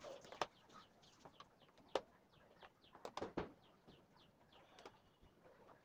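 A few faint clicks and taps of a screwdriver on the plastic base of an induction stove as its screws are driven back in: one near the start, one about two seconds in and a small cluster a second later. Faint bird chirps sound in the background.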